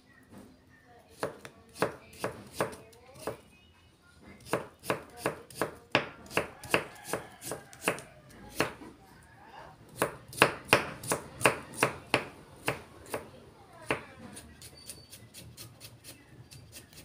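Chef's knife chopping carrot on a thick round wooden chopping board: a run of sharp knocks, a few strokes a second. There is a short pause about four seconds in, and the strokes turn to lighter taps in the last few seconds.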